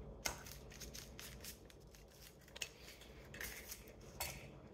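Keto pizza being cut into squares: quiet, short scraping strokes of a blade through the crust, with a few sharper clicks.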